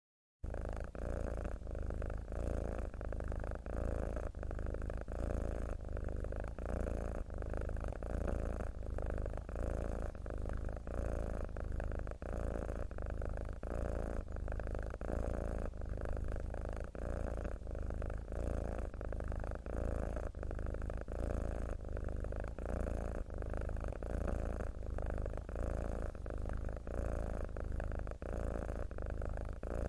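Domestic cat purring steadily and close up, the purr swelling and dipping with each breath in and out about every two seconds.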